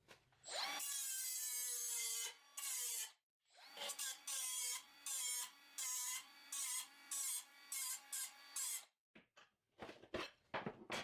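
Electric grinder on steel: the motor whines with a grinding hiss for about two seconds, then runs in about eight short bursts, followed by a few faint clicks near the end.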